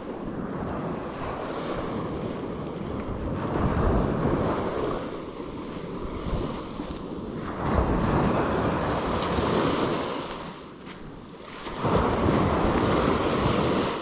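Small ocean waves breaking gently on the shore, surging and fading in three swells a few seconds apart, with some wind rumble on the microphone.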